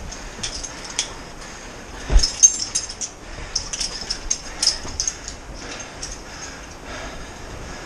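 Someone scrambling over rocks and boulders: scattered clinks, knocks and scrapes of stone and gear. The loudest is a heavy thump about two seconds in, then a quick run of sharp clinks.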